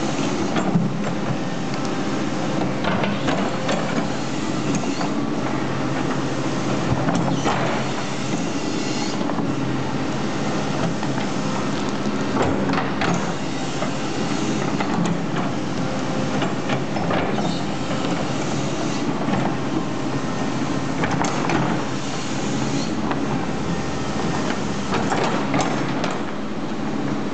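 Doosan crawler excavator's diesel engine running steadily under load while the bucket digs into soil, with irregular clanks and scrapes of the bucket and earth.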